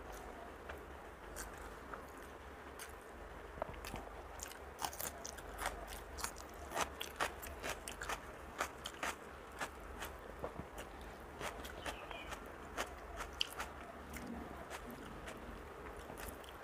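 Close-miked chewing of rice mixed with beet paste: a run of short wet clicks and smacks, thickest in the middle, with fingers mixing rice against a steel plate.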